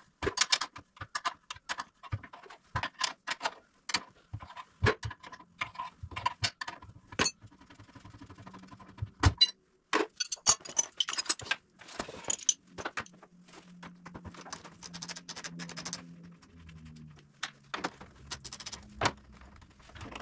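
Hand tools and metal hardware clinking and knocking at irregular intervals, a run of sharp metallic clicks as parts are worked on at the front of a side-by-side.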